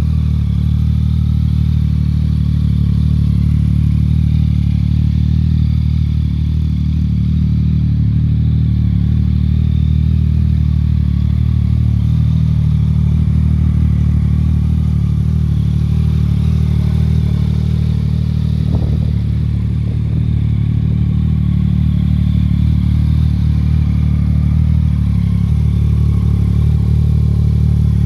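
Yamaha MT-09's 847 cc CP3 inline three-cylinder engine idling steadily through a full Akrapovic exhaust system.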